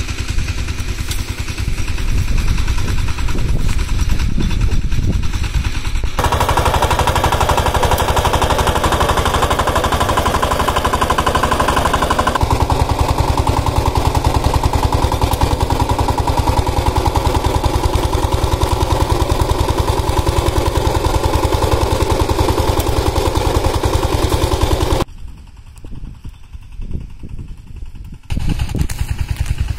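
Single-cylinder diesel engine of a walk-behind power tiller chugging with fast, even firing knocks while its rotary tiller works the soil. It drops away to a much quieter sound for a few seconds near the end, then comes back.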